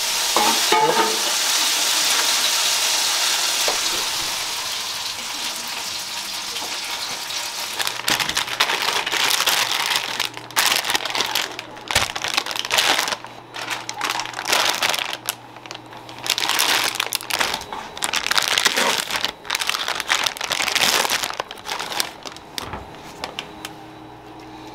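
Plastic bag crinkling and rustling in irregular bursts as it is opened and handled, after a steady hiss that fades over the first several seconds.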